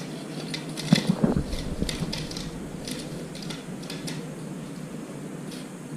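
Exgain E1800 battery-powered robot lawn mower running with a steady hum as its blades clip long grass, with scattered light clicks and a louder knock about a second in.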